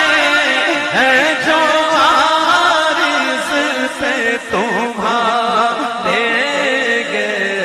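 Naat, an Urdu devotional song, sung in long, wavering melismatic vocal lines with a steady low tone underneath.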